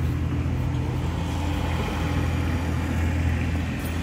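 An engine running at a steady speed, a low even drone that does not change.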